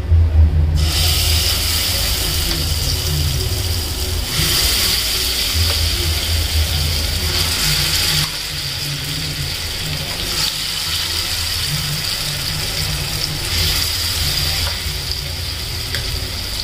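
Lentil-and-onion pakoras deep-frying in hot oil in a kadhai: a steady sizzle that swells in stretches as more dollops of batter are dropped in, over a low steady hum.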